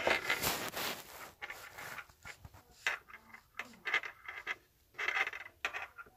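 Handling noise: irregular rubbing and scraping broken by small clicks and knocks.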